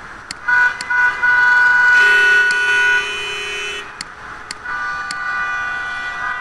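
Vehicle horn sound effects from a traffic simulation program on a computer. Two short honks come first, then a long horn held about two seconds with a lower buzzy horn overlapping its end, and another steady horn tone starts near five seconds. Sharp mouse clicks fall in between as vehicles are ticked in.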